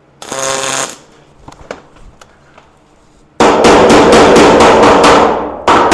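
A brief MIG tack weld on aluminum, a short hiss lasting under a second. Then a loud, fast run of ball-peen hammer blows on the aluminum hull seam, about five a second, with a short break near the end. The hammering peens the still-warm tack to close the seam gap to nothing.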